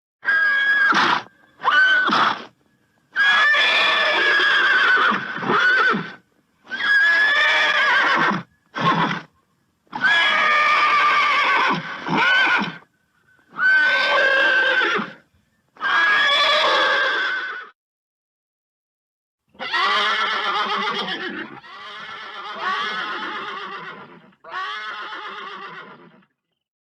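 Horse neighing over and over: about a dozen whinnies of varying length, each separated by a short silence, with a longer pause about two thirds of the way through.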